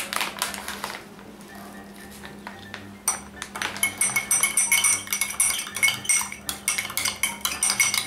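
A metal spoon stirring and clinking against a small container, mixing baking soda into boric acid water: a few light clinks at first, then rapid continuous clinking and scraping with a ringing tone from about three seconds in.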